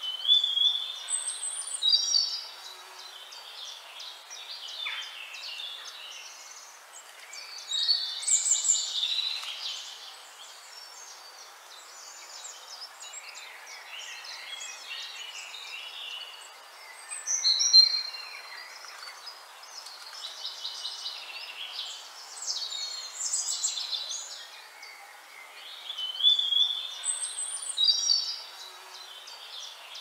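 Birdsong from several birds: high chirps, short whistled notes and rapid trills in bursts every few seconds, over a steady hiss.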